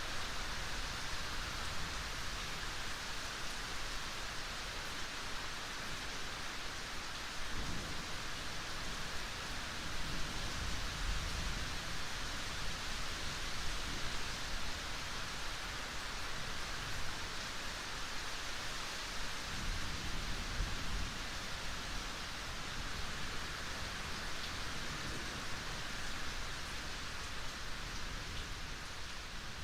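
Steady rain hissing, with low rolling thunder swelling in about 7 seconds in and again around 19 seconds in.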